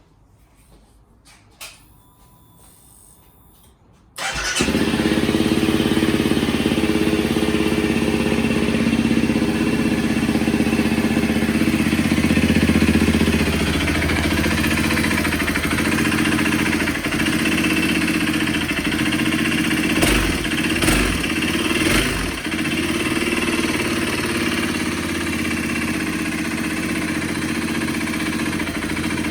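Honda CRF250L (MD38) single-cylinder engine starting about four seconds in, then idling steadily and briefly louder three times around twenty seconds in. It carries an abnormal engine noise that a replacement cylinder and piston did not cure.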